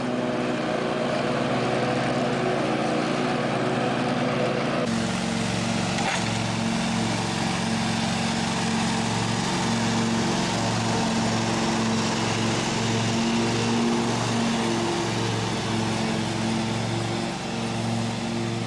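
John Deere riding lawn tractor engine running steadily. About five seconds in, the sound cuts to a second ride-on lawn tractor mowing, its engine running with a regular throb.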